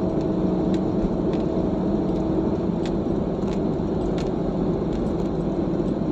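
Car driving on an asphalt road, heard from inside the cabin: a steady drone of engine and tyre noise with a low hum that weakens about halfway through, and a few faint clicks.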